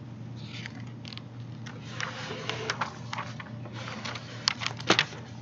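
Handling noise of a recording device being moved: scattered rustles, clicks and taps, the sharpest two near the end, over a steady low hum.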